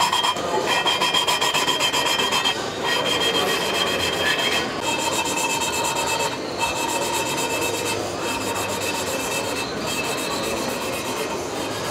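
A valve being hand-lapped into its seat in an Audi 50 cylinder head with lapping paste, making a gritty back-and-forth rubbing. The rub pulses rhythmically for the first couple of seconds and then runs on more evenly.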